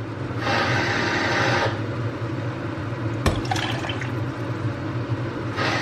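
Water poured from a glass measuring cup into a steel pot of rice and vegetables: one pour of about a second starting half a second in, another starting near the end, and a single sharp knock about three seconds in. A cooker hood fan hums steadily underneath.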